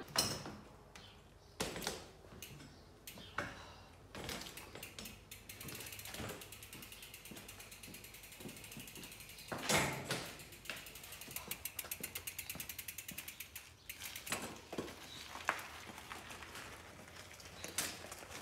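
Mountain bike's rear freewheel hub ticking as the wheel turns, with a run of quick even clicks from about ten to thirteen seconds in. Scattered knocks and clunks come between, the loudest just before that run.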